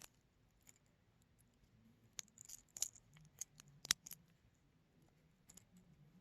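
Faint small metallic clicks and taps of a gold-plated watch bracelet and its clasp being handled as the watch is put on the wrist. They cluster from about two to four seconds in, with one sharper click near four seconds.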